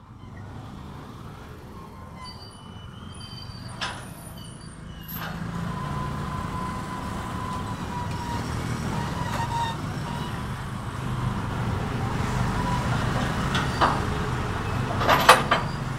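Heavy truck's diesel engine running, its rumble growing stronger about five seconds in, with a faint steady whine over it and a few sharp clanks, the loudest near the end.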